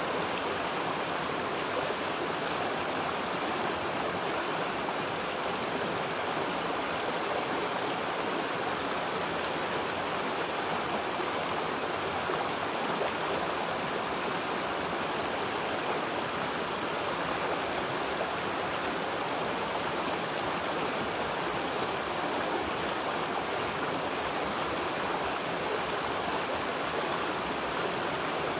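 Running water: a steady, unbroken rush with no pauses or distinct splashes.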